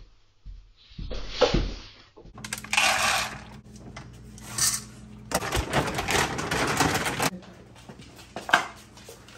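Dry dog kibble rattling as it is scooped from a bin and poured into stainless-steel dog bowls, in several bursts, with a sharp clink near the end. A short noise comes before it in the first two seconds.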